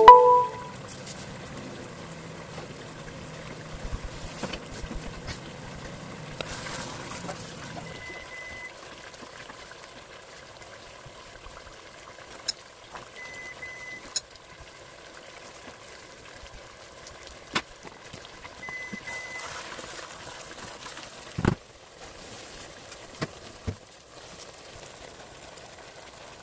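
Chicken and tomato sauce sizzling and simmering softly in a pot on an electric stove, with a few sharp knocks of a wooden spoon against the pot and one dull thump a little past the middle.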